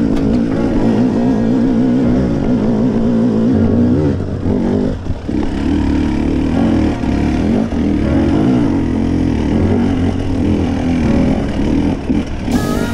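Enduro motorcycle engine running hard under the rider, its pitch rising and falling quickly with the throttle as it climbs across rough grass.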